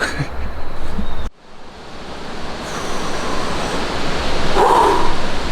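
Steady rush of river water, a broad even hiss that cuts out sharply about a second in, then fades back in and grows steadily louder.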